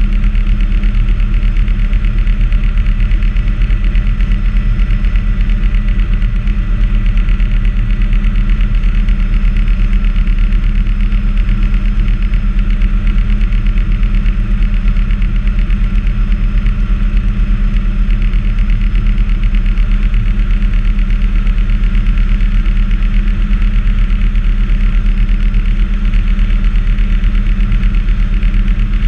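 Bell 206A helicopter in flight, heard from inside the cabin: a steady loud drone of turbine engine and rotor with a rapid, even beat from the main rotor, and a thin steady whine over it.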